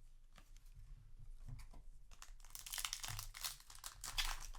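Foil booster pack wrapper crinkling and rustling in the hands, starting about halfway through as a dense run of rapid crackles after a quieter start with a few light ticks.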